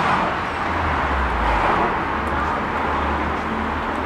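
Road traffic passing on the street: a steady wash of tyre and engine noise with a low rumble.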